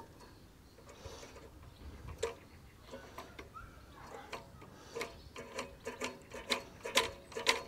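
Light metallic clicks and ticks from the Hayter 41 mower's throttle and governor linkage being worked back and forth by hand, coming faster and louder in the second half. The linkage is stiff and catching somewhere.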